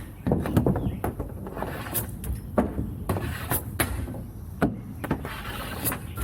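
Hockey stick and puck clacking on plastic shooting tiles during wrist-shot practice. About eight or nine sharp knocks come at an uneven pace over a steady low rumble.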